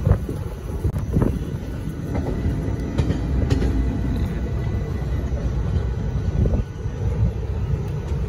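Passenger train running along the track, heard from aboard the coach: a steady low rumble with a few sharper knocks scattered through it.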